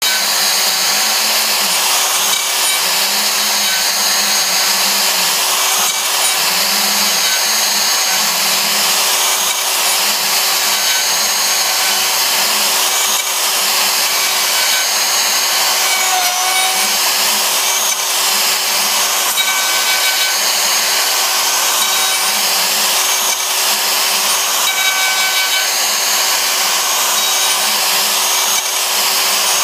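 CNC router spindle running a 1/2-inch straight-fluted plunge bit through plywood on a radial finishing pass: a steady spindle whine under the hiss of the cut, which swells and eases about every second and a half as the bit sweeps across the pocket.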